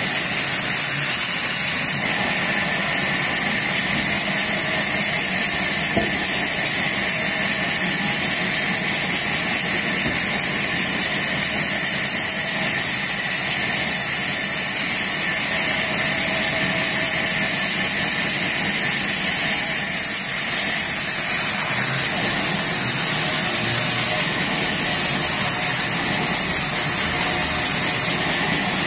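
Large sawmill band saw running and cutting lengthwise through a log as it is pushed along the table: a loud, steady, high hiss of the blade in the wood over the machine's hum.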